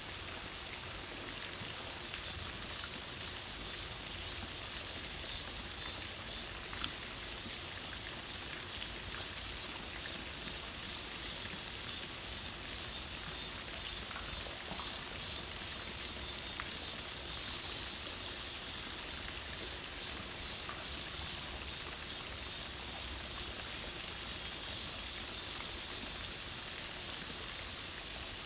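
Steady high-pitched outdoor hiss of natural ambience, with one faint click about seven seconds in.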